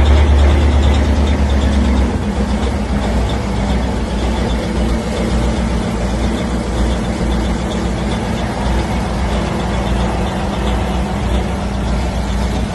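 Semi truck's diesel engine running, loud and deep for the first two seconds, then easing to a steadier, slightly quieter run.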